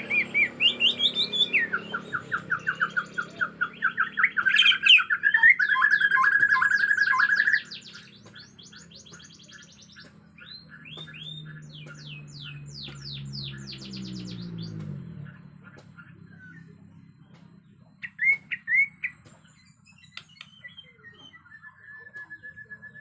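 White-rumped shama (Bornean murai batu) singing in agitated, aggressive song: loud rapid trills, chatter and runs of repeated whistled notes for about the first seven seconds, then quieter, more spaced phrases and short whistles.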